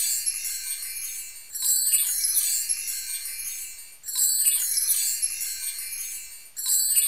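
Bright, shimmering wind-chime sound effect, set off anew about every two and a half seconds and fading between repeats, as a looped notification-bell sting.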